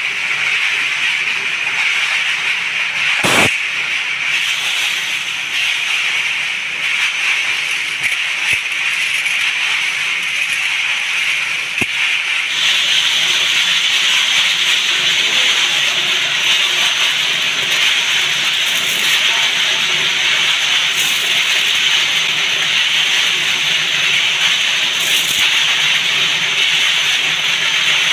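Steady hissing whir, with one sharp knock about three seconds in; about halfway through it turns louder and brighter as a centrifugal spin dryer loaded with freshly dipped bolts spins to dry them.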